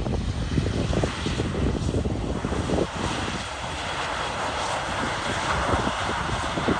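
Airbus A320 jet engines heard from the runway side as the airliner rolls out after landing. The engine noise grows louder and brighter about two seconds in and then holds steady, with wind gusting on the microphone.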